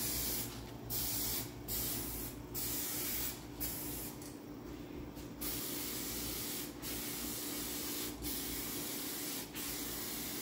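A 2K aerosol spray can of high-temp engine primer hissing as it coats an engine block. It comes in several short bursts with gaps at first, then in longer passes broken by brief pauses.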